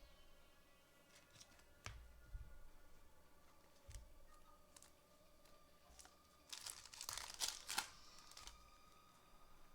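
Light clicks of trading cards being handled, then a crinkly foil card-pack wrapper torn open for about a second and a half, loudest about seven seconds in.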